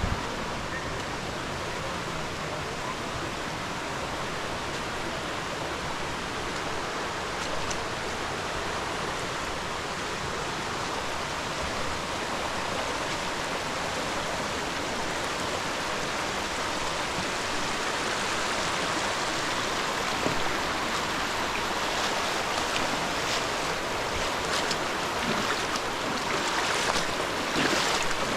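Rushing water of a stream and waterfall, a steady even rush that grows gradually louder over the second half, with a few faint taps near the end.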